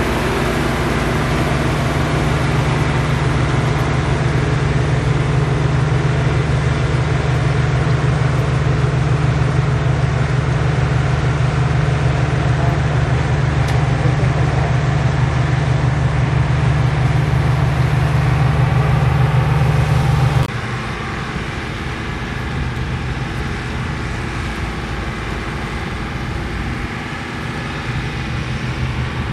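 New Holland 8070 combine harvester running steadily while harvesting, with a deep diesel engine note and threshing machinery clatter. About two-thirds of the way through, the sound drops abruptly to a quieter, more distant drone of the same machine.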